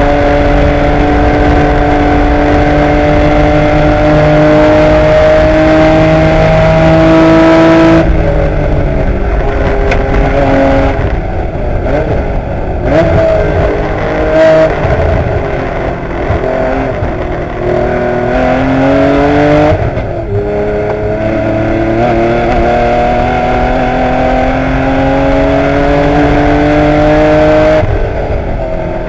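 1984 Porsche 911's air-cooled flat-six engine at racing speed, heard from inside the car's cabin. The pitch climbs steadily in long pulls under full throttle and drops suddenly about eight seconds in, again around twenty seconds and near the end, as the car shifts or comes off the throttle for corners.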